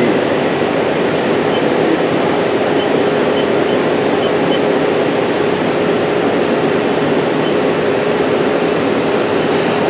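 Haas SL-20T CNC turning center running, a steady hum and hiss with a constant low whine.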